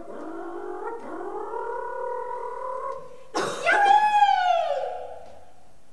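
A woman's voice doing comic-strip vocal sound effects: a long held note that rises slightly, then a loud swoop that falls in pitch.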